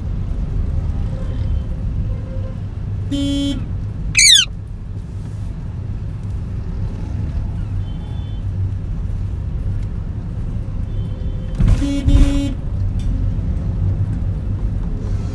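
Steady low engine and road rumble inside a car in traffic. A vehicle horn honks once about three seconds in and again twice around twelve seconds. Just after the first honk, an Indian ringneck parakeet gives one loud, quick falling screech.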